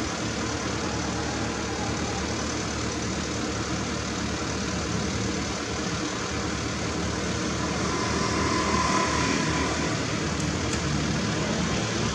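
Bucket truck's engine running steadily at idle, growing slightly louder in the second half.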